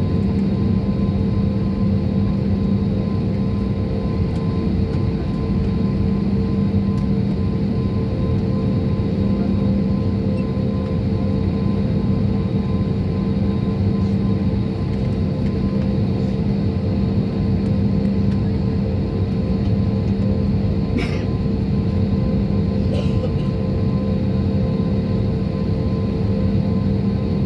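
Steady drone of a jet airliner heard from inside the cabin: a low rumble with a constant engine hum, and two faint clicks near the end.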